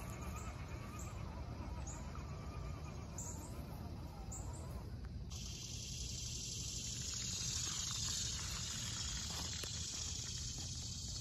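Woodland ambience at dusk: short high insect chirps about twice a second, then an abrupt switch to a steady high insect-chorus hiss about halfway through. A few faint clicks come near the end.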